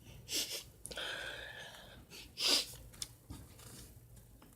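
A person sniffing hard through the nose several times, snorting pepper off his hand to bring on a sneeze; the sharpest sniff comes a little past halfway.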